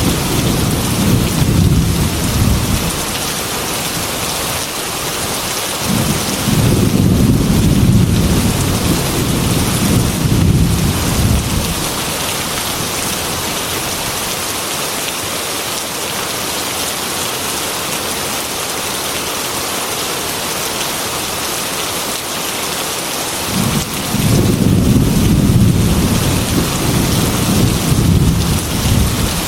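Heavy rain falling steadily, with low rolling thunder rumbles three times: at the start, again for several seconds about a fifth of the way in, and again near the end.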